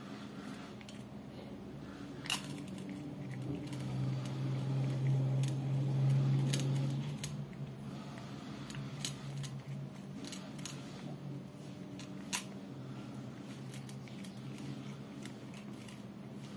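A cat eating wet food from a metal tray: chewing and licking, with scattered sharp clicks of teeth or tongue against the tray. A low steady hum sits underneath and grows louder for a few seconds in the middle.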